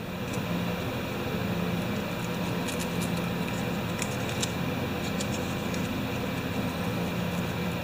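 Faint scratching and scattered small ticks from cleaning corrosion off a barbecue igniter's small metal battery clip, over a steady low hum.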